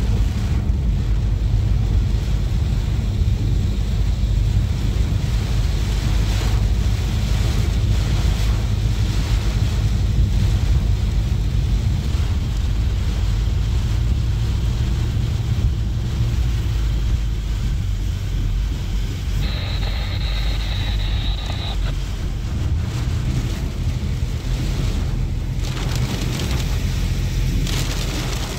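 Car driving on a rain-soaked road in a storm, heard from inside the cabin: a steady low rumble of road and engine noise under a hiss of rain and spray. A brief high-pitched whine sounds for about two seconds about two-thirds of the way through.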